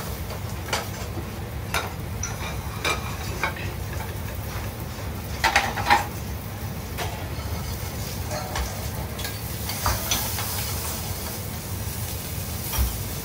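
Food sizzling in pans and on a grill over a steady low rumble, with scattered clinks and knocks of metal on pans; the loudest clatter comes about five and a half to six seconds in.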